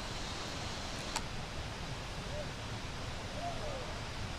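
Steady rushing of a waterfall and river, with a single sharp click about a second in.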